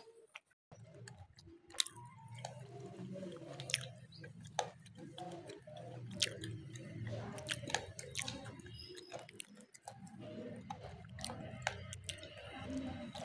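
Gray langur chewing and crunching hard food it has taken from a hand: many sharp, irregular crunches close by, over a steady low rumble.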